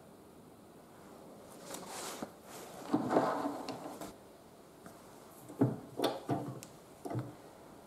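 Hard workshop parts being handled: a short scraping slide about three seconds in, then a cluster of sharp knocks and clunks near the end. No grinder is running.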